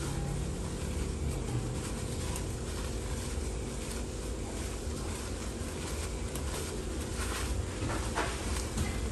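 A folded towel wiping around the inside of a non-stick frying pan, rubbing against the pan's coated surface, over a steady background hiss.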